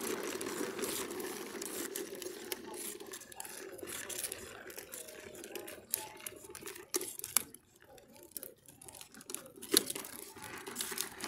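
Hard plastic wheels of a toddler's ride-on trike rolling over rough concrete, a steady rolling rumble that weakens midway and almost stops for a moment, with a few sharp knocks.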